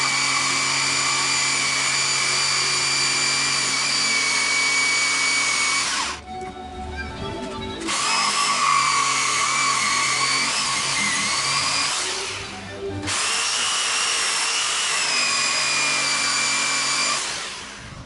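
Electric power tool motor whining steadily in three runs of several seconds, easing off briefly between runs, its pitch wavering slightly as it is worked under load.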